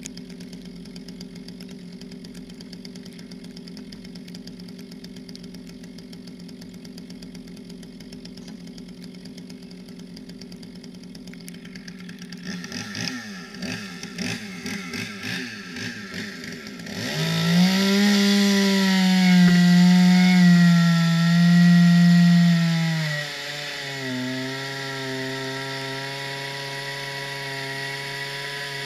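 Two-stroke chainsaw engine: a steady hum at first, then throttle blips with the pitch jumping up and down. About two-thirds of the way in it is held loud at full revs. Near the end the pitch drops and holds lower as the bar bites into the ice to enlarge a swimming hole.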